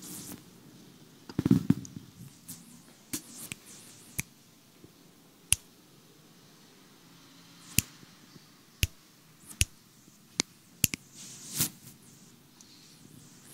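Scattered sharp clicks and soft knocks of stage gear being handled as a band gets ready, with a duller thump about a second and a half in. No music is playing.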